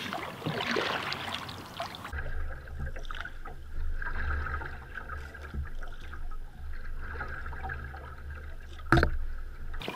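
Canoe paddle strokes pulling through calm water beside a cedar strip canoe's hull, with light water trickling and swishing at each stroke. About two seconds in the sound changes to a steady low hum under the water noise, and near the end there is a single sharp knock.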